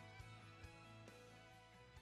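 Faint background music: held tones with soft picked notes, slowly fading.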